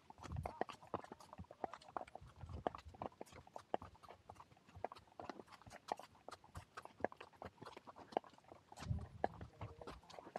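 Horses' hooves clopping at a walk along the trail: a steady run of sharp hoof strikes, several a second. A brief low rumble comes about nine seconds in.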